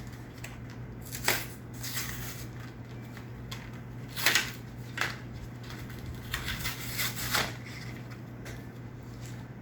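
Pokémon card packaging being handled and opened: a series of sharp crinkling rustles of plastic wrap and card, over a steady low hum.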